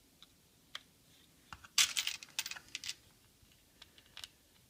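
Small metal rivets clicking and rattling as they are handled and pushed into the holes of a Kydex sheath: scattered light clicks, with a dense burst of rattling about two seconds in lasting about a second.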